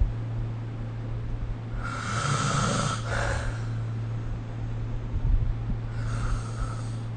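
A sleeping person snoring: two snoring breaths about four seconds apart. The first, about two seconds in, has a low rattle and trails off into a breathy exhale; the second, near the end, is fainter.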